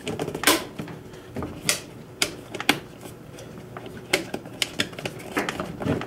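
Irregular sharp plastic clicks and knocks from hand-handling a BMW S1000RR airbox and its air filter: the clip at one end is worked and the filter frame is pressed down into its seat.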